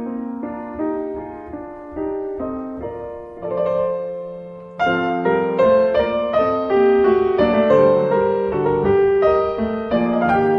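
Piano music, growing louder and fuller about five seconds in.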